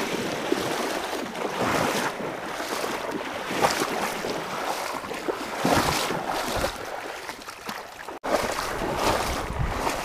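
Legs wading through a shallow creek: water sloshing and splashing in surges about once a second with each stride, broken by a sudden brief dropout a little after eight seconds.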